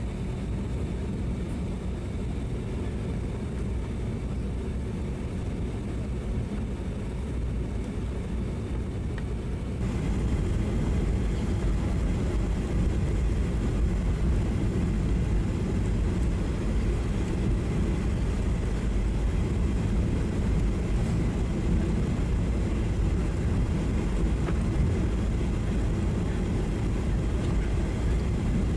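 Cabin noise inside a Boeing 737-800 on final approach with flaps extended: a steady rush of airflow and engine drone that steps up in level about ten seconds in.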